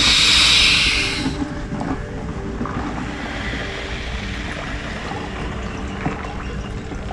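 A man blowing out long, slow breaths through pursed lips as he sinks into an ice bath: controlled breathing against the cold shock. The loudest exhale comes in the first second and softer breathing follows, over a steady low rumble.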